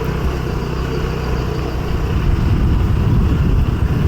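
Engine of a moving motor vehicle running steadily, a low rumble.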